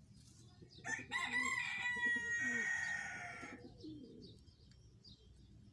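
A rooster crowing once: one long call starting about a second in and fading out by about four seconds in.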